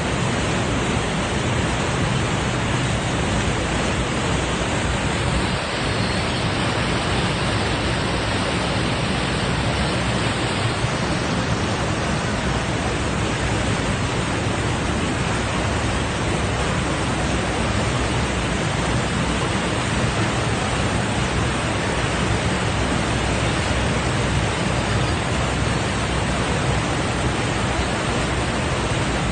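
Steady, unbroken rushing noise of water from the Horseshoe Falls and the tour boat's churning wake.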